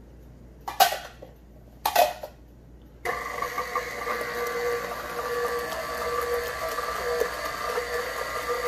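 Two sharp clunks, then about three seconds in a KitchenAid Professional 5 stand mixer switches on and runs steadily with a motor whine as its flat beater churns a thin batter.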